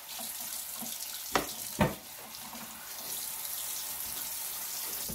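Kitchen tap running steadily into a stainless steel sink as raw chicken feet are rinsed under the stream, with two short knocks about a second and a half and two seconds in.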